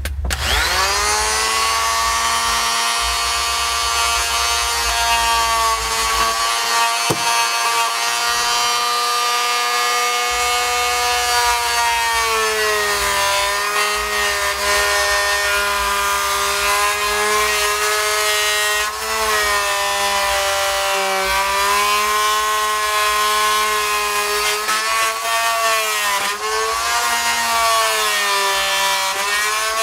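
Corded oscillating multi-tool starting up and cutting through the plywood floor along a cabinet edge: a steady, loud buzz whose pitch sags several times as the blade is pressed into the cut.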